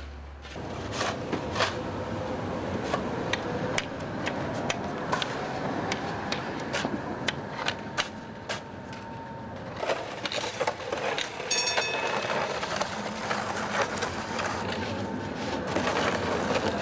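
Metal snow shovels and ice scrapers chopping and scraping at packed snow and ice on a paved sidewalk: an irregular run of sharp knocks and scrapes over city street noise, with a brief high ringing tone about halfway through.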